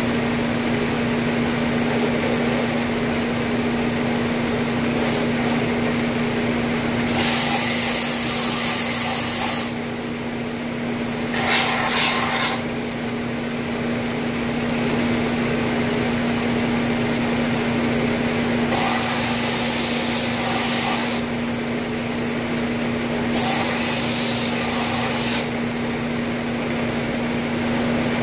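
Shopsmith belt sander running with a steady hum, broken four times by a loud hiss of a couple of seconds as a wooden spatula is pressed against the moving sanding belt.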